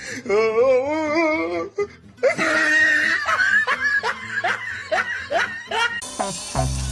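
Laughter: first a wavering, drawn-out laugh, then a longer stretch of repeated "ha-ha" laughing. About six seconds in, a music track with a beat starts.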